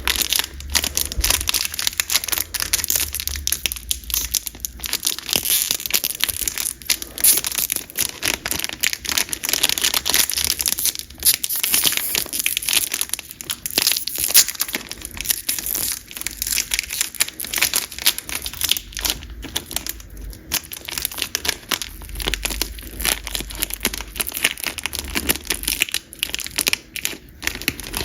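Foil wrapper of a trading card booster pack crinkling continuously as it is handled and opened, with many small crackles and clicks.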